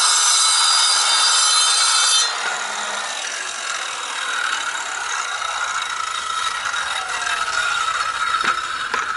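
Porter-Cable 7¼-inch circular saw with a water-fed diamond blade cutting through granite: a loud, steady whine with many tones that stops abruptly about two seconds in. A quieter steady noise follows, with two sharp clicks near the end.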